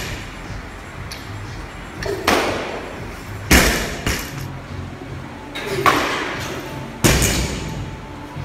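A loaded barbell with rubber bumper plates thudding down on a gym floor four times, each hit sharp with a short ring-out and a brief swish before it.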